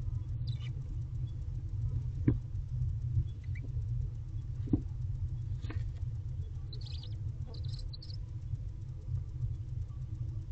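Barn owl nest box: a steady low rumble with a few sharp knocks and scratches of the owls moving in the box, and two short high squeaks a little past the middle, typical of the chittering of newly hatched barn owl owlets.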